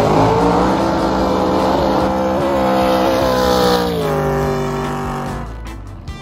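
Racing jet boat's engine running at high speed as it passes close by, its pitch dropping about four seconds in and fading as the boat goes away.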